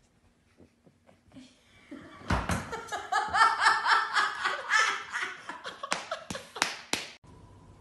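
A person laughing hard, a rapid run of breathy "ha" pulses that starts about two seconds in and cuts off suddenly near the end.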